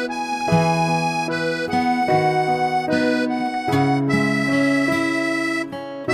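Instrumental background music: several held notes at a time, moving on to new notes every half second or so in a steady melody.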